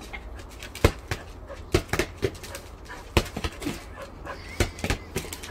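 A dog giving short whimpers and yips, among irregular sharp clicks and taps that are the loudest sounds.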